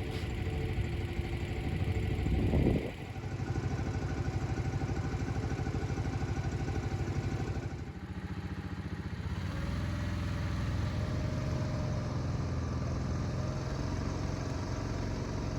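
A small motor vehicle's engine running steadily, with a brief louder surge about two and a half seconds in.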